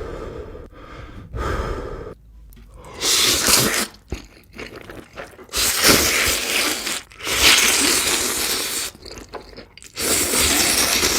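Close-miked eating of spicy cheese noodles and sausage: chewing and crunching, broken by four loud hissing bursts a second or more long.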